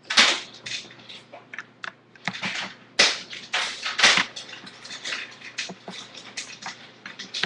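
Plastic Lego bricks clicking and clattering as the Lego machine's roof is handled and pressed back into place: a run of sharp clicks, with louder knocks at the start and about three and four seconds in.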